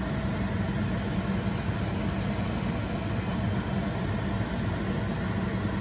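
Steady low hum with a light hiss from a running machine, unchanging throughout.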